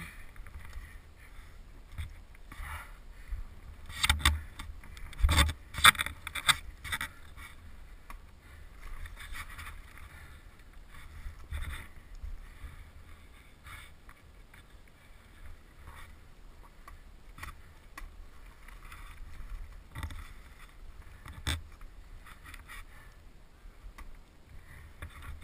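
Rocks and gravel crunching and the dirt bike knocking and scraping as it goes down a steep rocky slope. A cluster of loud knocks comes a few seconds in and two more single knocks come later, over a low wind rumble on the microphone.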